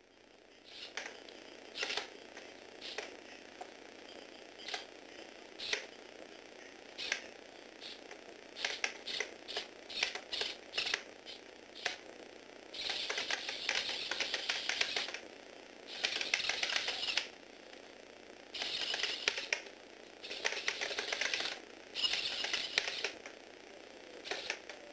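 Lego Technic robot dog walking on a wooden desk: its plastic gears and legs clatter and its feet knock on the desk. At first there are scattered single clicks and knocks. About halfway through come runs of rapid clatter, each a second or two long, with short pauses between.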